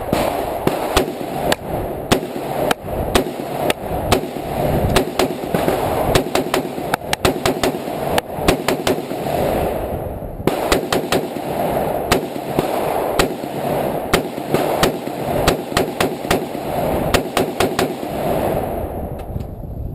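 Semi-automatic AR-15 rifle firing a long string of shots, often two or three a second, each a sharp crack. The firing stops shortly before the end.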